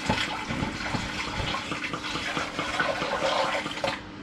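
Dissolved brewing sugar in hot water poured from a stainless steel pan through a plastic funnel into a fermenter: a steady splashing pour that stops suddenly about four seconds in.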